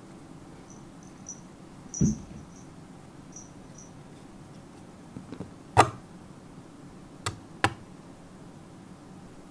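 Knocks and taps on a cardboard box as a cat plays inside it at a pom-pom toy poked through its holes: a dull thump about two seconds in, then a sharp knock and two quick clicks in the second half. Faint high chirping sounds in the first few seconds.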